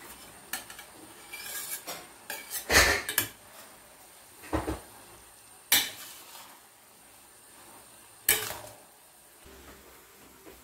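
Metal cooking utensils knocking and scraping against a stainless steel pan as fried rice vermicelli is tossed. The knocks come at irregular intervals, a few seconds apart, and the loudest is about three seconds in.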